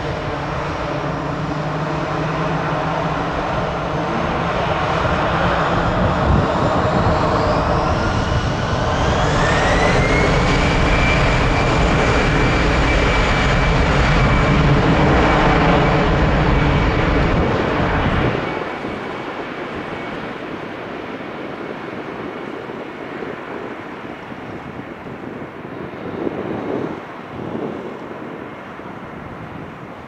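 Airbus A319 jet engines spooling up to takeoff thrust: a whine rising in pitch about eight to ten seconds in, then held steady over a heavy rumble. About eighteen seconds in the low rumble drops off sharply, leaving a fainter steady whine as the airliner rolls away down the runway.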